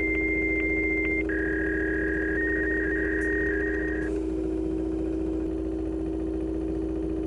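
Electronic signal tones over a steady low hum: a steady high beep with a click about every half second, switching about a second in to a two-tone, telephone-line-like signal that warbles and then stops about four seconds in, leaving only the hum.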